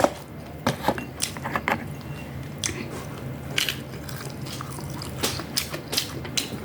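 Close-up eating sounds: biting and chewing food, with sharp clicks of cutlery against a dish scattered through, over a steady low hum.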